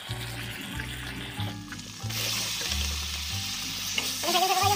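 Pork sizzling as it fries in a black iron kadai, the sizzle getting brighter about two seconds in, with background music playing over it.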